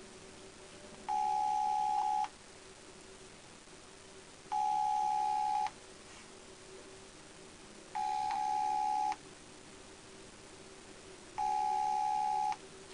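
Ringback tone of an outgoing phone call, played through a smartphone's speaker: four rings, each just over a second long, about three seconds apart, while the call goes unanswered.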